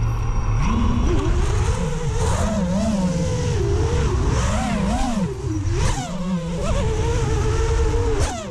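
FPV quadcopter's Happymodel SE2306 2700KV brushless motors spinning up from idle under a second in. Their whine rises and falls again and again with the throttle as the quad takes off low through grass, the propellers thrashing the grass blades.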